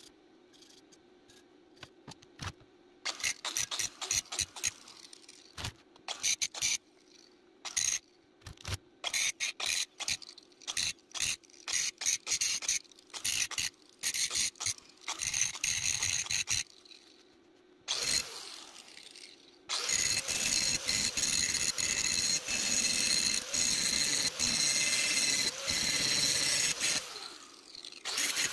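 Irregular short metallic hits and bursts on a welded steel box. Then a handheld angle grinder runs steadily against the steel with a high whine, winds down near the end and starts up again.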